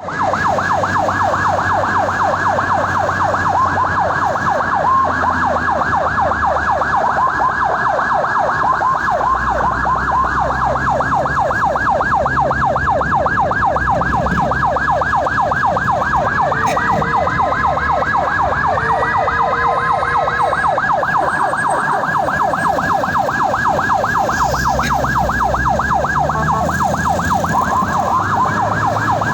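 Ambulance siren in fast yelp mode, a rapid up-and-down sweep repeating several times a second without a break, sounding on an emergency patient run. A slower gliding tone joins it for a while about halfway through and again near the end, over a low rumble of engine and road noise.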